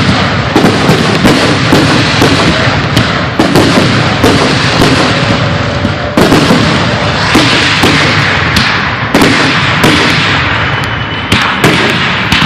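Aerial fireworks shells bursting in a dense, overlapping barrage of booms and bangs, one after another with no gaps.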